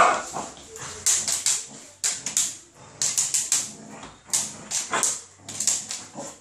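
Five-month-old Belgian Malinois puppy barking and growling as she attacks in bite training, with repeated clusters of sharp clicks and scuffles from the struggle on a tiled floor.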